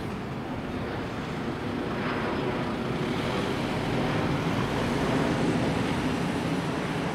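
Mercedes-Benz Sprinter ambulance driving past, its engine and tyres growing louder to a peak about five seconds in and then fading, with no siren sounding.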